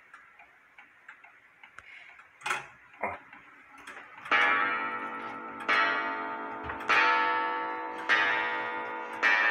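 French Morbier clock ticking, then striking on its gong: after two louder clicks, five ringing gong strokes come about a second and a bit apart, each ringing on into the next. The owner thinks the gong is not quite adjusted right.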